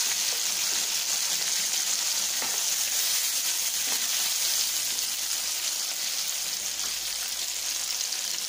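Chopped tomatoes sizzling in hot sesame oil in a nonstick frying pan as they are sautéed down, with a few scrapes of a wooden spatula stirring through them in the first half.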